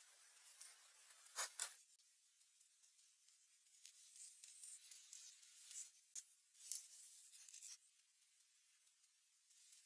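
Faint rubbing and scraping, with two short sharp scrapes about a second and a half in and scattered lighter scrapes later.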